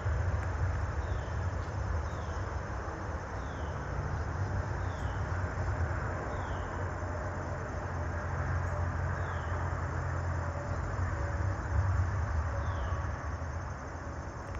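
Steady low outdoor rumble, like distant traffic, with a faint short falling chirp repeating about once a second, growing sparser toward the end.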